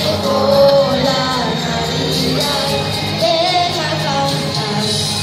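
Children singing a song into microphones over amplified backing music.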